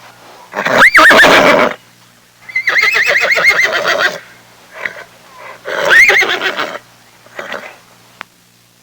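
An animal calling loudly three times, about two and a half seconds apart, each call lasting about a second with a quavering, wavering pitch. Shorter, fainter sounds fall between the calls.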